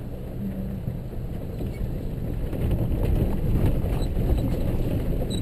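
Off-road 4x4 driving slowly over a rocky gravel riverbed: a steady low rumble of engine and tyres on stones, with small knocks and rattles, heard from inside the cab.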